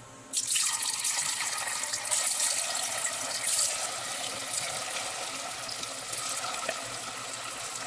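Cubes of firm tofu dropping into hot oil in a pot and sizzling as they start to deep-fry. The sizzle starts suddenly, is loudest over the first few seconds and eases a little as more cubes go in.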